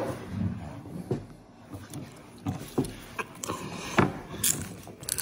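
Popcorn being handled and eaten close to the microphone: a string of short, sharp crunches and clicks at irregular intervals.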